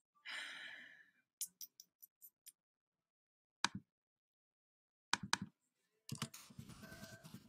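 Computer mouse and keyboard clicks: a short rustle at the start, then a quick run of about six clicks, a lone click, a pair of clicks, and a denser patter of key taps near the end.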